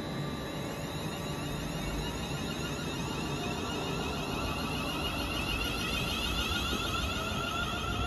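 Class 350 Desiro electric multiple unit pulling out of a station. Its traction motors give a whine of many tones that rise steadily in pitch as it accelerates, over a low rumble of wheels on rail, growing slightly louder.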